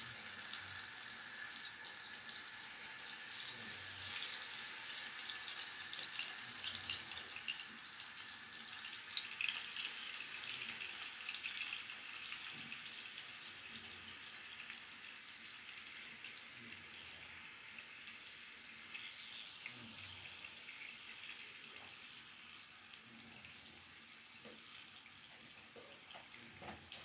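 Seasoned chicken breasts sizzling in hot oil in a frying pan as more pieces are laid in, a steady hiss with small crackles that slowly grows quieter.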